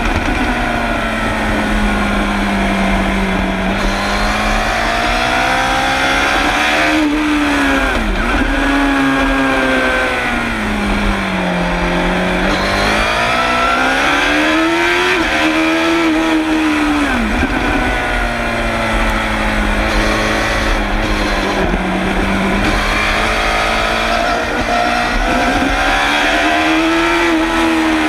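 Suzuki GSX-R750 SRAD's inline-four engine at racing speed, heard close to its exhaust silencer: the note climbs and falls again and again as the rider works through the gears, with sharp dips at gear changes, over steady wind rush.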